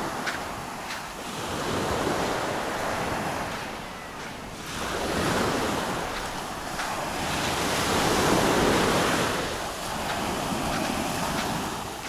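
Small sea waves breaking and washing up a sandy beach, the surf swelling and fading about every three seconds.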